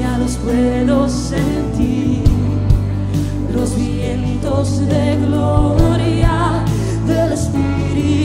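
Contemporary Christian worship music: a band with steady bass and drum hits under singing voices.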